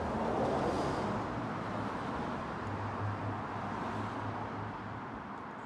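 Road traffic noise with a motor vehicle's engine hum, steady and low, easing off toward the end.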